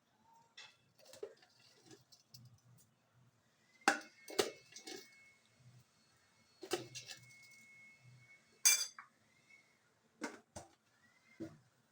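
Kitchen utensils clinking and knocking against pots and dishes: a string of sharp clinks at irregular intervals, a second or two apart.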